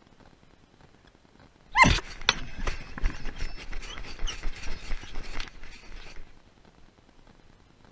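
A dog gives one sharp yelp about two seconds in. It is followed by about four seconds of scuffling, clicking and rustling as the dog moves about close by.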